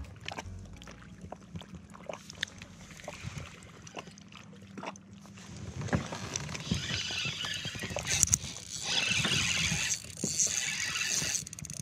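Water splashing around a fishing kayak, with knocks and clicks from gear being handled; the splashing gets louder about six seconds in and keeps on in uneven spurts.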